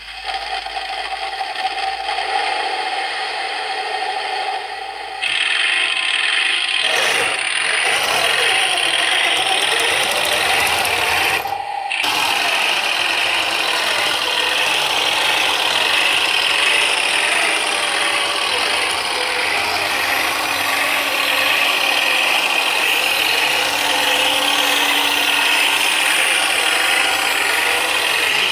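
Heng Long Tiger I 1:16 RC tank driving: a continuous rasping, rattling run of its electric drive, metal gearboxes and tracks, mixed with the engine noise of its built-in sound module. It gets louder about five seconds in, with a brief dip near twelve seconds.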